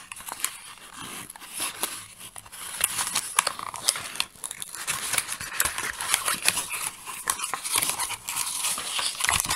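Cardboard packaging rustling, scraping and knocking as a lamp's metal-and-brass base is worked out of its folded cardboard insert by hand, in a run of quick irregular clicks.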